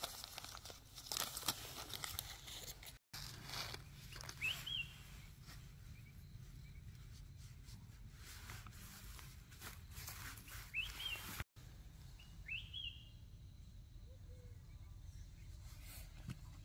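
Forest ambience: scattered crackles and rustling through the first few seconds, then a few short, high bird chirps spaced several seconds apart over a low steady background.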